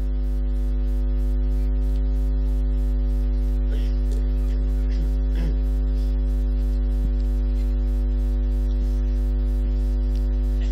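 Steady electrical mains hum through a microphone and sound system, a deep buzz with a faint regular ticking of interference above it.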